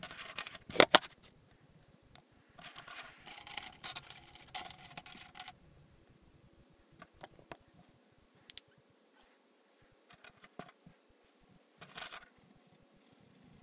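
Handling noise: bursts of clicking, rattling and rustling, with one loud sharp click about a second in, a longer rattling stretch after that, and scattered single clicks later on.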